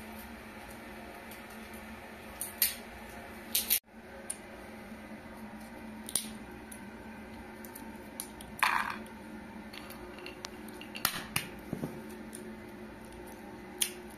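Walnut shells cracking and snapping as they are broken apart by hand, a scatter of short sharp cracks every second or two with one longer crackle about two-thirds of the way through, over a steady faint hum.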